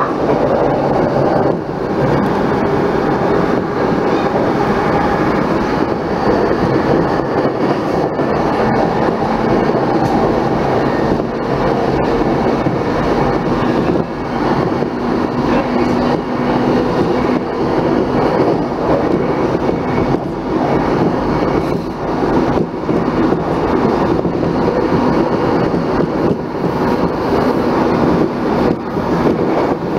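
JR Saikyo Line electric commuter train running steadily between stations, heard from inside the car: a constant rumble of wheels on rail with faint scattered clicks.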